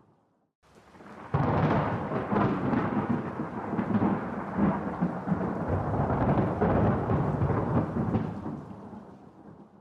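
A thunderclap breaks in suddenly about a second in and rolls on as a long, deep rumble, then slowly dies away over the last few seconds.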